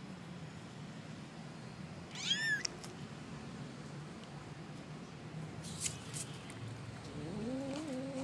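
Kitten meowing: one short, high-pitched meow about two seconds in, then a longer, lower drawn-out call near the end, with a few faint clicks between them.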